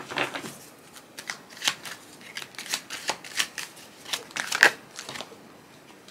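A tarot deck being shuffled by hand: a string of irregular light card flicks and snaps, one louder snap about four and a half seconds in.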